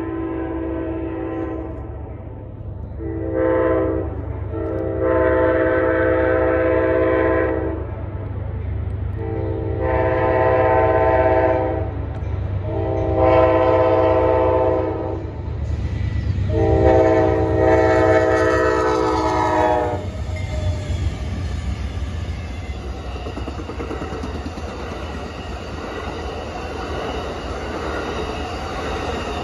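Amtrak Auto Train's locomotive air horn sounding six chord blasts for the grade crossing, the second one short. Then the train passes with a steady rumble of wheels on the rails and a rhythmic clickety-clack.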